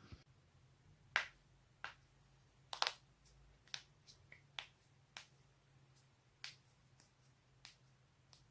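A series of sharp joint cracks and pops, about a dozen, unevenly spaced, with a quick double crack about three seconds in.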